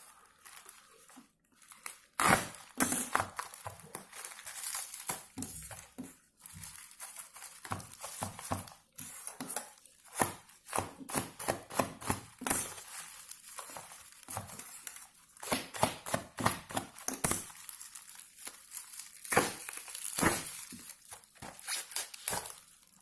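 Shipping packaging being cut and torn open by hand, crinkling and crumpling with many irregular sharp crackles.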